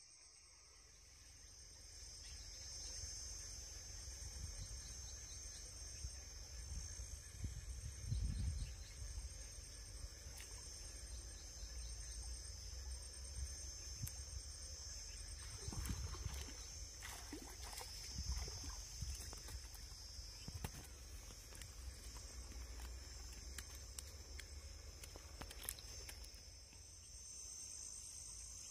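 Insects chirring in a steady high-pitched drone, over a low rumble, with a few soft thumps.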